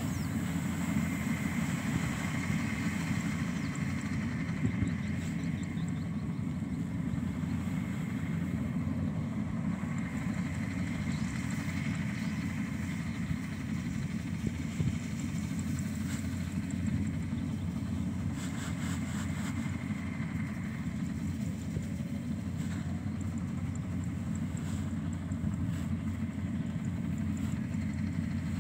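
Yanmar combine harvester's diesel engine running steadily under load as it harvests rice, a constant low drone.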